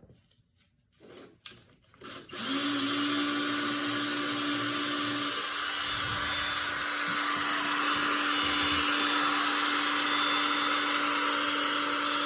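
Electric drill spinning a rusty mower wheel bolt while a strip of sandpaper is held against it to clean off the rust and gunk: a steady motor whine with a loud scratchy sanding hiss. It starts about two seconds in, and the sanding gets louder about halfway through.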